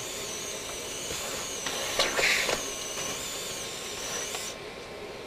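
Shop-vacuum hose sucking chips beside a small hobby CNC mill's rotary-tool spindle cutting through a wooden board, a steady running noise with a high whine. A brief louder rasp comes about two seconds in, and the high whine stops about four and a half seconds in.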